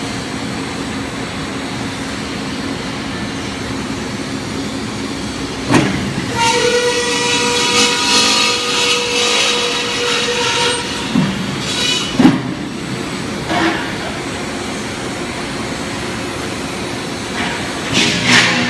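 CONTOR CTCS165 cold-saw flying cut-off machine running with a steady mechanical noise. About six seconds in, a bang starts a cut: the saw blade goes through the steel pipe for about five seconds with a loud, high-pitched ringing squeal. Metal clanks follow, and there is another clatter near the end.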